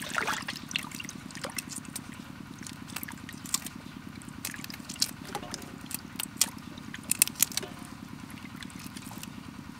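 Raw shrimp being peeled by hand over a steel basin of water: scattered small wet clicks and crackles of shell, with water dripping and trickling off the hands. A steady low hum runs underneath.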